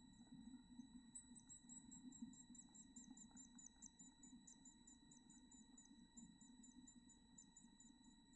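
Black-capped chickadee nestlings giving faint, rapid, very high-pitched begging calls, several a second, starting about a second in, over a steady electronic whine and a low hum.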